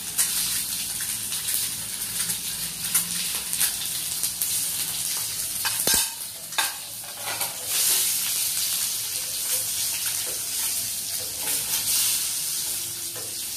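Halved boiled eggs frying in hot oil in a pan: a steady sizzle with scattered crackles and pops of spattering oil.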